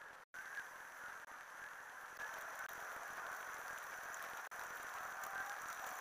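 Steady faint hiss with no distinct calls, cut off for a split second near the start.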